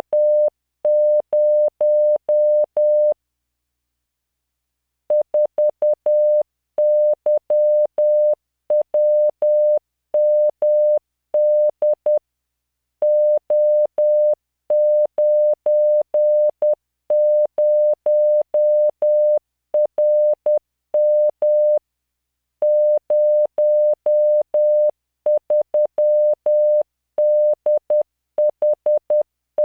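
Computer-generated Morse code: a steady 600 Hz sine tone keyed in dots and dashes at 10 words per minute, sending random five-character practice groups. There are short pauses between letters and longer silent gaps between groups.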